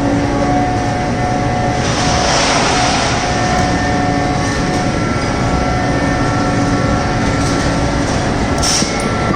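Hydraulic scrap metal baler running: a steady machine hum with a whine of several steady tones, a rush of noise about two seconds in, and a short sharp click near the end.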